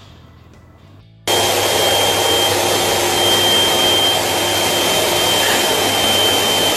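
Vacuum cleaner running: a loud, steady rushing noise with a high whistle through it, starting abruptly about a second in.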